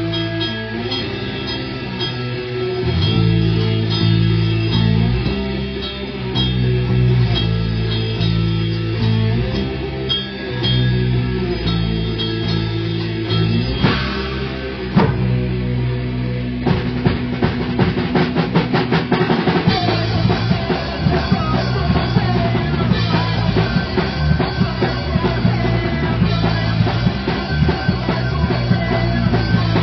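Punk band playing live: electric guitar and drum kit. Held guitar notes ring out over the drums for the first half, then a fast, steady drum beat drives the rest.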